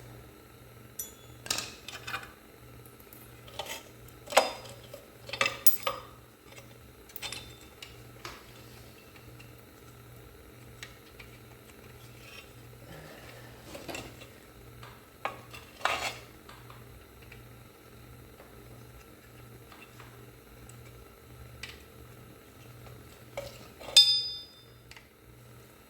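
Metal hand tools and parts clinking and clanking at irregular intervals, with one louder ringing clank near the end, over a steady low hum.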